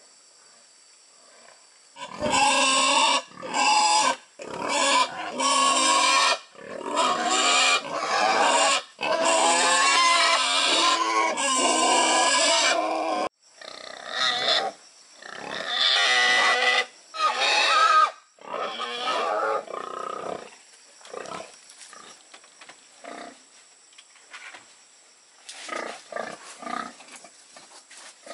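An animal squealing loudly over and over, in long drawn-out cries of a second or two each, which become fainter and shorter after about twenty seconds and pick up again near the end.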